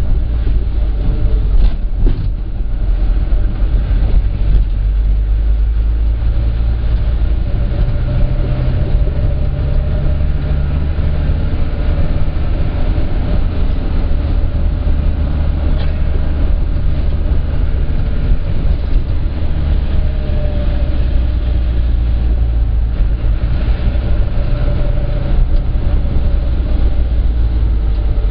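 Minibus engine and road rumble heard from inside the cab while driving: a loud, steady low rumble with the engine's hum drifting up and down in pitch, and a couple of short knocks about two seconds in.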